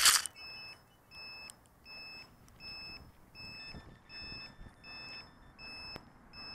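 An FPV racing quad's onboard buzzer beeping while the quad lies crashed: short, high beeps about every three-quarters of a second, the kind of alarm used to find a downed quad. A second, fainter tone joins about halfway through.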